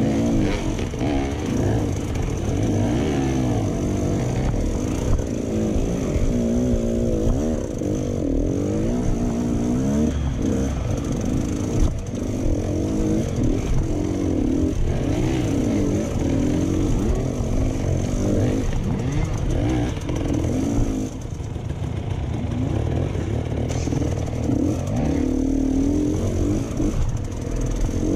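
Dirt bike engine revving up and down over and over under load on a steep, rocky hill climb, with a few sharp knocks.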